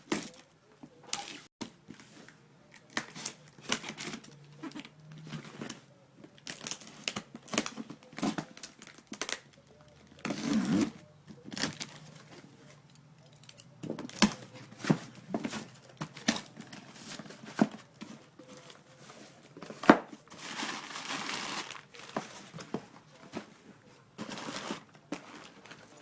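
A mail package being opened and unpacked by hand: packing material crinkling and tearing, with scattered clicks and knocks as the items inside are handled. The sharpest click comes about twenty seconds in.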